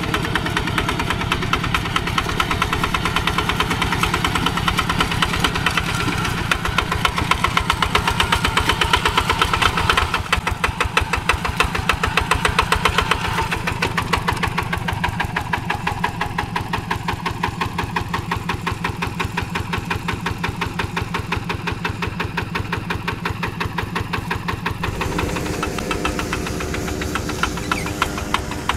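Single-cylinder diesel engine of a two-wheel hand tractor chugging steadily under load as the tractor works a flooded rice paddy, its firing beats evenly spaced and rapid.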